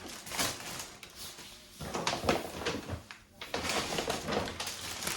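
Rustling and handling noise of grocery items being moved by hand, coming in three bouts.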